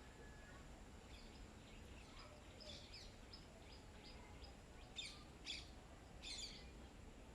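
Small birds chirping faintly: a run of short, high chirps, then three louder chirps near the end.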